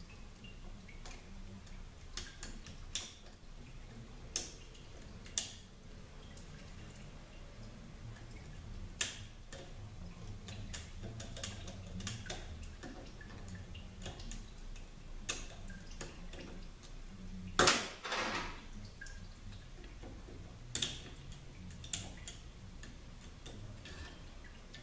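Sporadic light metallic clicks and taps of snap ring pliers and hand tools working a small snap ring out of a Nissan RE4R01A automatic transmission, with one louder clatter about three-quarters of the way through.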